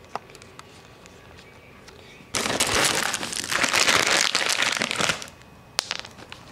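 Treat packet crinkling and rustling for about three seconds as it is opened and a cat treat is taken out, then stopping suddenly. Near the end a single click as a piece of kibble lands on the wooden floor.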